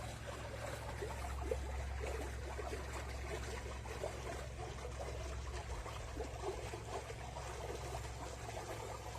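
Water trickling and lapping, with many small splashy blips over a steady low hum.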